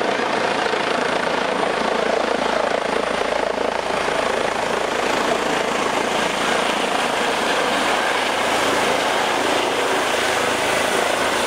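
Emergency medical helicopter, a Eurocopter EC135, hovering close by and coming down to land. It makes a steady, dense rush of rotor and turbine noise with a faint high whine.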